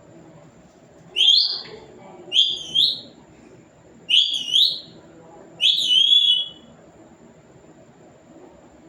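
Pet parrot giving four short, high-pitched whistled calls a second or two apart, the middle two broken into two syllables.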